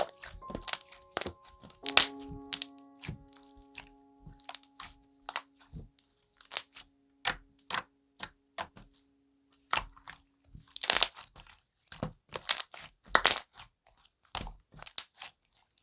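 Slime being squeezed and pressed by hand, giving irregular sharp pops and clicks, a few in quick clusters.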